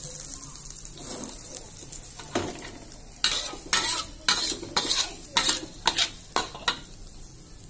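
Spice paste frying in oil in a wok with a light sizzle while a metal spatula stirs it. From about three seconds in, a quick run of about ten sharp scrapes and clanks of the spatula against the wok.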